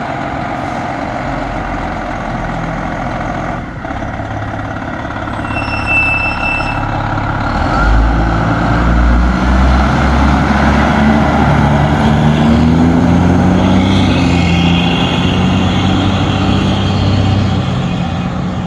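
Fire truck's Detroit Diesel 8V71N two-stroke V8 diesel running, growing louder and rising in pitch from about eight seconds in as the truck pulls away under load. A short high beep sounds about six seconds in.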